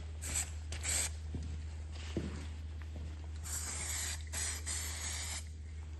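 Aerosol spray can of Hammerite paint hissing in short bursts: two brief sprays near the start, then two longer ones in the second half.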